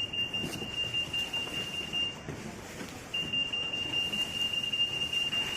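C-36X RF anti-theft (EAS) gate alarm sounding a single steady high-pitched tone, the signal that a tagged item has been detected passing between the gates. The tone breaks off a little over two seconds in and starts again about a second later.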